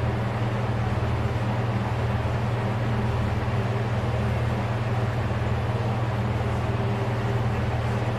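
An engine running steadily at a constant pitch, with a low hum.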